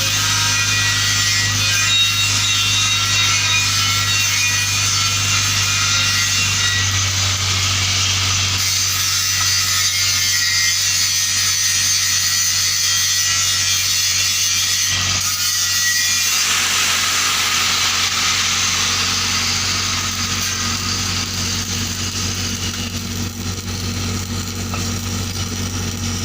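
Steady hissing, scraping metalworking noise on steel pipe, with a few faint whining tones over a steady low electrical hum; the sound changes character a little past halfway and eases slightly near the end.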